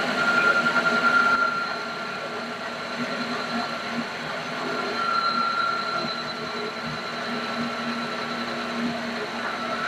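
Mini lathe running with a steady whine from its motor and gears while the cutting tool takes a skim cut along the outside of a spinning brass cutlass bearing shell; a little louder for the first second or so.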